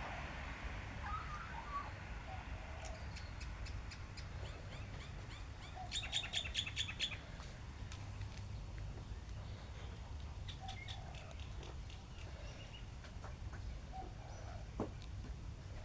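Birds chirping: scattered short calls, with a quick run of about eight sharp chirps about six seconds in.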